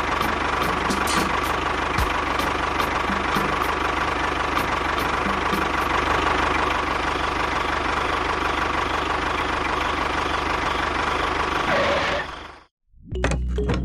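Small motor of a homemade mini bulldozer running steadily, with a held whine and a low hum. It cuts off abruptly near the end, and music starts right after.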